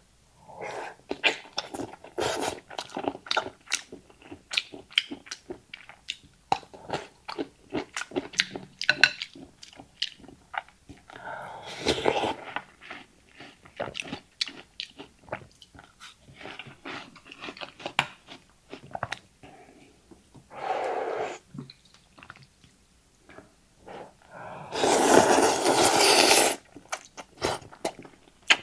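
Mouth sounds of someone eating rice noodles: wet chewing and smacking clicks throughout, broken by a few slurps. The longest and loudest slurp comes about 25 seconds in and lasts about a second and a half.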